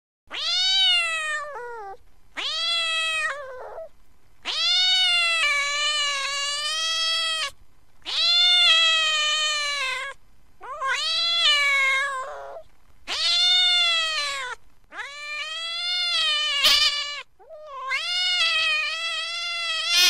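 Domestic cat giving long, drawn-out angry meows, about eight calls one after another with short pauses between.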